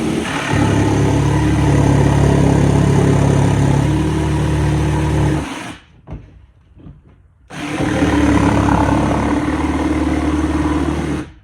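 Porter-Cable jigsaw running and cutting through cedar fence pickets, in two long runs with a short pause about six seconds in.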